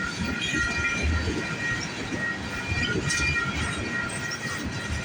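Freight train cars rolling past at track side, wheels clattering over the rail joints with a steady rumble, and thin high squealing tones from the wheels that come and go.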